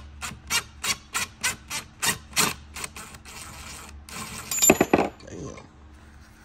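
Ratchet backing a valve spring compressor's screw off a Hemi cylinder head, in a run of short, regular strokes about three a second that slackens the compressed valve spring. A louder cluster of sharp clicks comes near five seconds in as the tool comes free.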